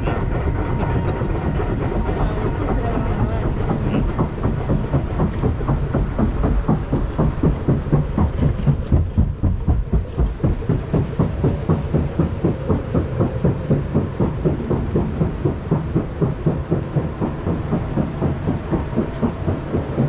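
Intamin river-rapids raft riding up the conveyor lift hill, a steady rumble that turns into a regular rhythmic clatter of about three knocks a second some seven seconds in.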